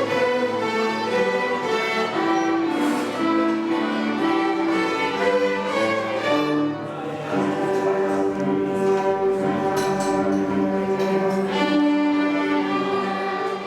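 A string orchestra of violins and cellos playing classical-style music in long held notes. The music eases down slightly in level near the end.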